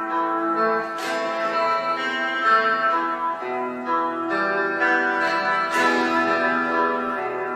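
Stratocaster-style electric guitar playing a slow melody over held chords, with a strummed chord about a second in and another near six seconds.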